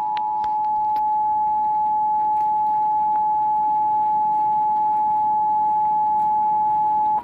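Emergency Alert System attention signal: a loud, steady two-tone beep, held for about seven seconds and then cut off abruptly. It announces a tornado warning broadcast.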